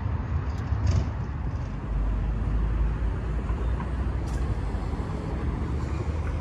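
Road traffic noise: passing vehicles and a steady low rumble, swelling for a moment about two seconds in.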